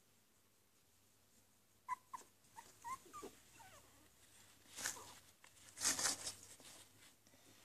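Two-week-old puppy giving a string of short, high squeaks and whimpers starting about two seconds in, followed by two louder rustles of fleece bedding being handled.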